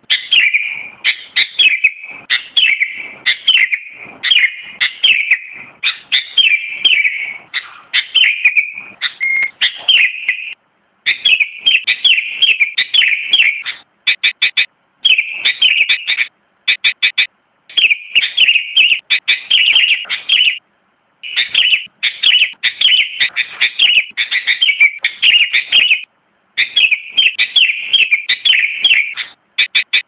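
Sooty-headed bulbul singing: runs of quick, chirping notes in phrases a few seconds long, separated by brief pauses.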